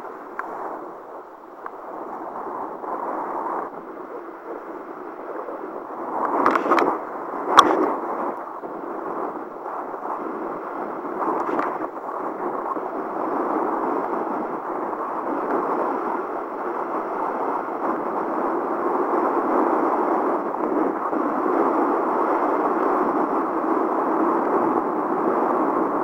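Rushing wind and water noise from a kiteboard riding fast over choppy water in strong wind, growing louder and steadier in the second half. Two sharp knocks come about six and a half and seven and a half seconds in.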